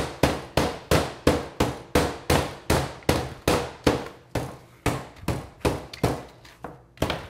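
Metal meat mallet pounding chicken thigh meat through plastic wrap on a plastic cutting board: steady blows about three a second, flattening the meat thin for schnitzel.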